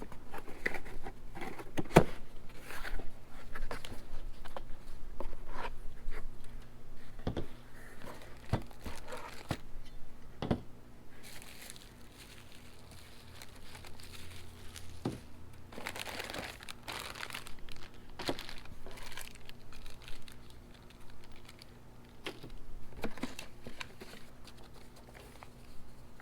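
Packaging being unpacked by hand: plastic bags crinkling and tearing, with scattered clicks and knocks as parts and the box are handled and set down.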